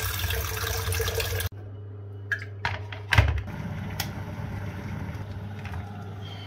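Tap water running into a stainless steel electric kettle in a steel sink, cutting off suddenly about a second and a half in. Then a few knocks and a low thump as the kettle is handled and set on its base, and a sharp click about four seconds in.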